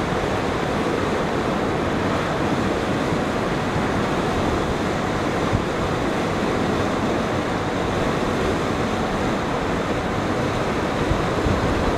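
Steady rushing of wind and sea water, heard from the deck of a ship under way.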